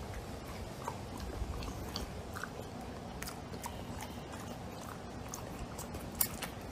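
English bulldog chewing a mouthful of food, with scattered short crunching clicks over a steady low background, and a sharper pair of clicks near the end.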